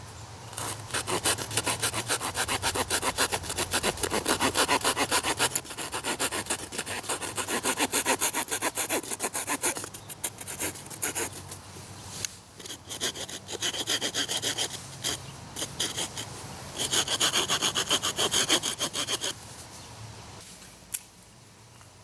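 A Leatherman Rebar multitool's small saw blade cutting through a thin stick of scrap wood in quick back-and-forth strokes. The sawing slows briefly about halfway and stops a couple of seconds before the end as the piece is cut through.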